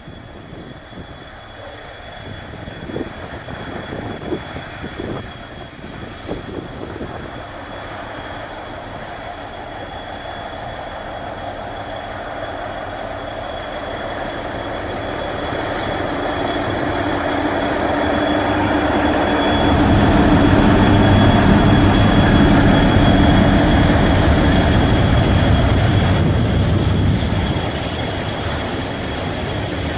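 Diesel freight locomotive approaching and passing while hauling open wagons. Its engine grows steadily louder and is loudest about two-thirds in. It eases near the end as the wagons roll by.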